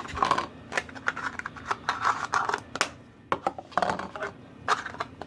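Slime being handled and its plastic container being capped: a run of sharp clicks among soft crackling, scraping noises.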